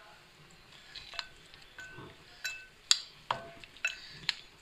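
Metal spoon scraping a ceramic saucer and clinking against a glass bowl while spices are tipped onto raw chicken cubes and stirred in. The clinks are light and irregular, some with a short ringing tone.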